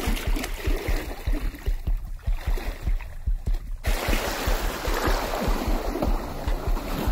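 Mountain bike tyres churning through shin-deep flood water, a steady splashing and sloshing that grows loudest from about four seconds in as the bike passes close by. Background music with a steady beat plays underneath.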